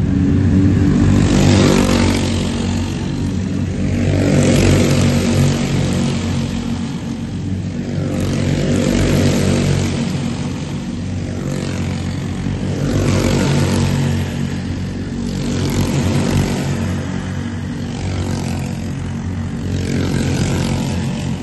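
An engine running steadily, with a rushing noise that swells and fades about every four seconds.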